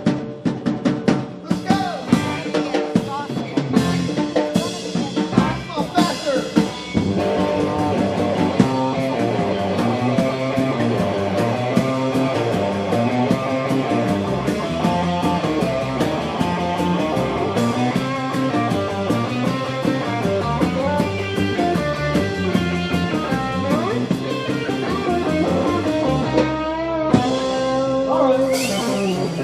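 Live rock band playing: electric guitar and drum kit. Sharp drum hits lead for the first several seconds, then the full band settles into a steady groove.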